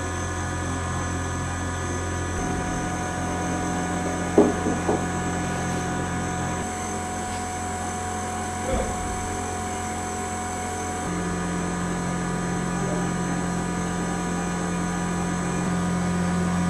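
Spectral MM milling machine running and cutting, its 10mm three-flute end mill slotting a copper bar under y-axis power feed: a steady motor hum with several steady tones, changing slightly twice along the way, and a couple of brief faint knocks.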